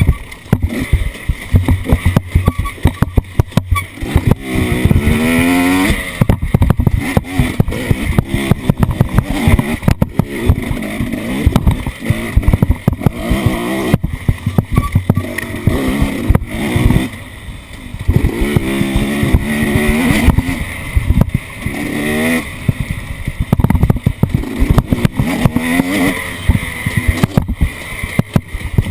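Off-road vehicle engine revving up and down over and over, with frequent knocks and rattles from the vehicle being jolted.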